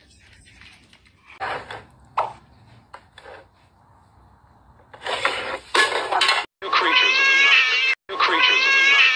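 Cat meowing: loud, long, drawn-out yowls with a wavering pitch through the second half, several in a row, after a few short, quieter sounds earlier.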